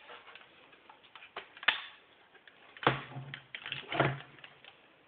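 Hard plastic parts of a toy dart blaster clicking and knocking as they are handled and worked free, with three sharper knocks among lighter ticks.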